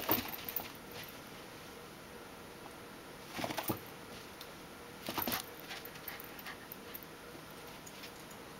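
A Cardigan corgi puppy's paws and claws scrabbling and scuffing on carpet as it pounces after a laser dot, in three short bursts: one at the start, one about three and a half seconds in and one about five seconds in, with a few light ticks afterwards.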